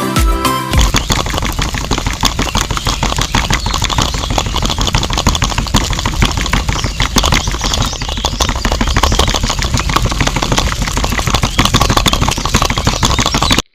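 Small motor of a miniature DIY machine running steadily with a dense, fast rattle. It starts about a second in and cuts off suddenly near the end.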